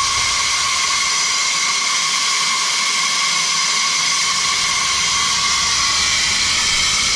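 Safety valves of a third-scale Burrell showman's traction engine blowing off steam: a steady loud hiss with a faint whistling tone, the sign that the boiler has reached its set blow-off pressure of about 170–180 psi.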